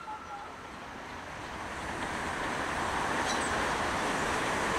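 Ivatt Class 2 steam locomotive 46512 working hard on a steep gradient: a steady rushing noise that grows louder over the first couple of seconds as the train comes nearer.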